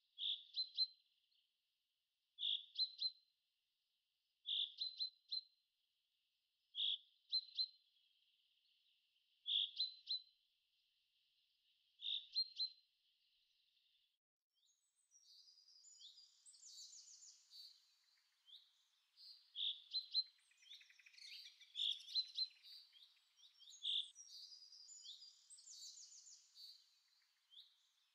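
Birdsong: a single bird repeating the same short chirping call about every two and a half seconds, joined about halfway through by several birds chirping and trilling together.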